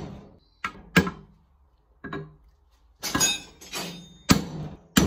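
Hand hammer striking a chisel driven down into a red-hot steel bar clamped in a vise, splitting the bar's end. The blows are sharp and come unevenly, seven or so, two in quick succession near the start and then roughly every half second to a second.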